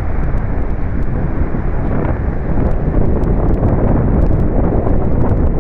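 Wind blowing across the phone's microphone, a loud steady rumble, with the wash of small breaking sea waves mixed in.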